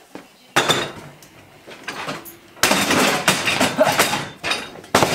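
A folding table being set up. There is a sudden clatter about half a second in, then, from about two and a half seconds, a longer run of scraping, rattling and knocks as its metal legs are swung out.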